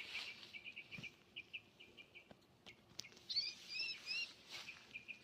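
Small songbirds chirping: a run of short repeated chirps, with a few quick rising-and-falling whistled notes about three to four seconds in.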